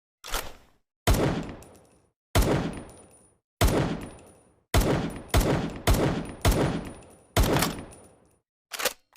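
Makeshift sound effect of an M1911 pistol firing: eight loud, sharp shots, each trailing off slowly, coming faster in the middle of the run, with a shorter, quieter report just before the first and just after the last.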